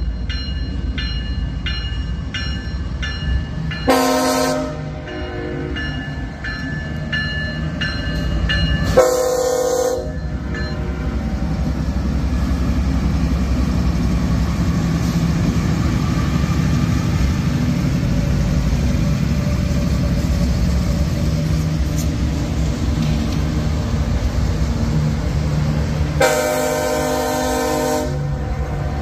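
Freight train passing a grade crossing: a crossing bell dings rapidly at first, and a CSX diesel locomotive's air horn sounds three blasts, a short one about 4 s in, another about 9 s in, and a longer one near the end. The deep rumble of the diesel locomotives grows louder once they reach the crossing.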